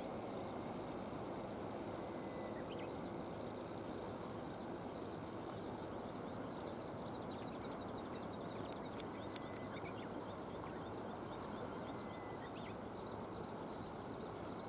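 Steady outdoor wash of the flowing river and light rain, with small birds twittering faintly through the middle and a single sharp click about nine seconds in.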